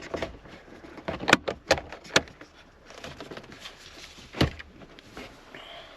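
A handful of sharp clicks and knocks from hand work on car parts, the loudest about a second and a half in, two more just after, and one more at about four and a half seconds.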